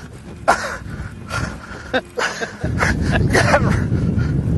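Brief excited exclamations from anglers fighting a hooked fish, over a low rumble that grows suddenly louder about two-thirds of the way in.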